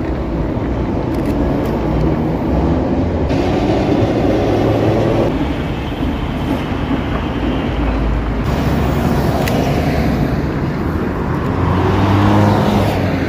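City street traffic: cars passing on a wide avenue with trams running on the tracks alongside, a steady rumble and hum that shifts abruptly twice and grows louder near the end.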